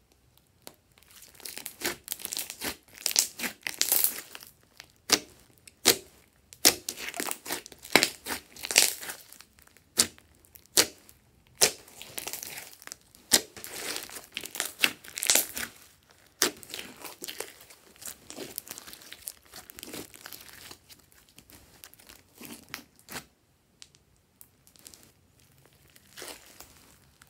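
Glossy slime being stretched, folded and pressed by hand, giving dense, irregular sticky crackles and pops. The crackling thins out and grows quieter near the end.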